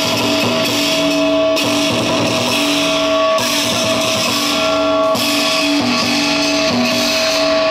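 Music led by guitar, loud and steady, its pattern shifting about every two seconds.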